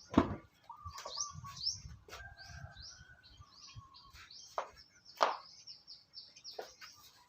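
Small birds chirping in many quick, short rising notes, with a lower warbling call beneath. A few sharp clicks or knocks cut through: the loudest about a quarter second in and again around five seconds in.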